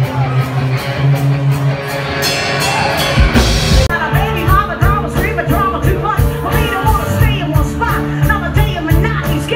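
Live rock band playing loud in a crowded bar, with electric guitars and drums; about four seconds in it cuts abruptly to another band's set, with a singer over a steady drum beat.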